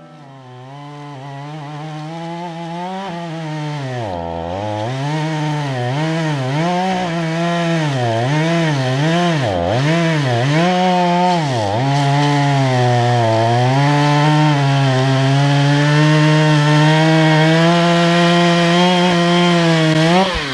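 Two-stroke chainsaw running, its engine revving down and back up over and over, then held steady at high speed for several seconds before cutting off sharply near the end. It grows louder over the first several seconds.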